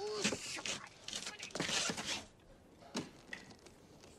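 A man groaning and gasping in pain for about two seconds, then quiet with a single sharp click about three seconds in.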